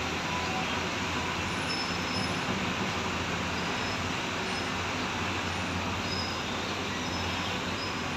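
Diesel engines of hydraulic excavators running steadily while they dig out a trench, a constant low drone with a hiss of noise over it.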